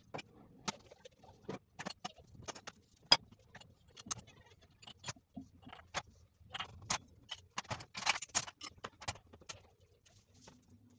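Kitchenware being handled: scattered clinks and knocks of ceramic mugs and glass being set down on the counter and hung on a wooden mug tree, with a quick run of clatter about eight seconds in.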